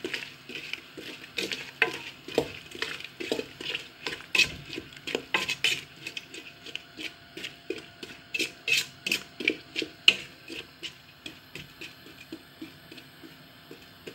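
Wooden spoon stirring chopped apples in sugar syrup in a steel pot, knocking and scraping against the pot's sides and bottom about twice a second, getting lighter near the end.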